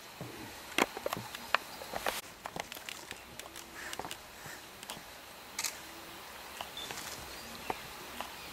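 African wild dogs moving about on a dirt track: soft footfalls and scattered sharp clicks over a steady outdoor background.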